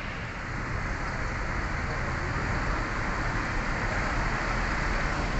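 Diesel engine of a Mercedes-Benz OH 1526 coach running at low speed as it pulls into a parking bay: a steady low rumble that grows slightly louder.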